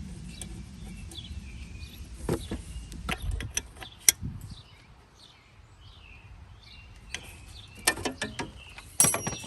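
Hand tools clicking and clinking on metal as the brake line fittings on a master cylinder are worked: scattered sharp clicks, one loud one about four seconds in and a quick cluster near the end. Birds chirp in the background throughout.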